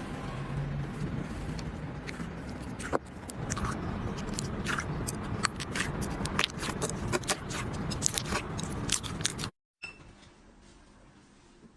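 Slime being squeezed and worked by hand: a steady squishing noise with a fast run of sharp little pops and crackles. It cuts off suddenly near the end to a much quieter stretch.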